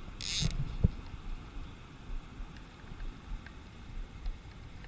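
Wind buffeting the microphone in a low, uneven rumble over the faint rush of a small stream, with a short hiss about a quarter second in.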